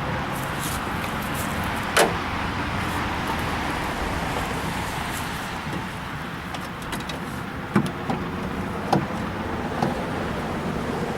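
A few sharp clicks and knocks from a car door's latch and exterior handle assembly being worked loose inside the door shell, one about two seconds in and several more near the end, over a steady background noise.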